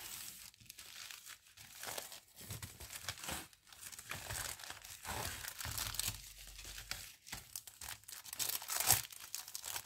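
Packaging crinkling and rustling as it is handled and pulled open, in irregular bursts with small clicks.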